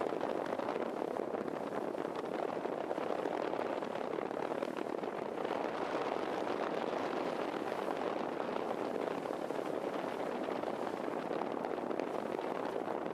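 Steady rush of wind buffeting the microphone on the open deck of a moving ferry, with the boat's running noise underneath.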